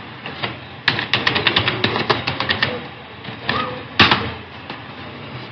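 Computer keyboard being typed on: a quick run of about a dozen keystrokes, a few more, then one louder click about four seconds in, as a password is entered and submitted.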